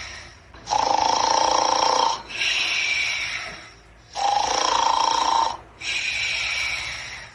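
Snoring in a steady, even rhythm: a loud snore of about a second and a half, then a softer breath that fades away. The pair comes twice.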